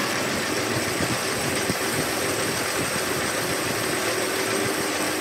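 Metal lathe running steadily under load as a single-point tool cuts a spinning metal workpiece, throwing off curled swarf: an even mechanical whir with faint steady tones and small ticks.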